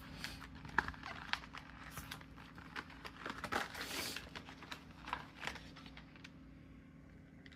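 Hands opening and handling a plastic case of fabric markers: light plastic crinkling with scattered small clicks and taps, dying away about six seconds in.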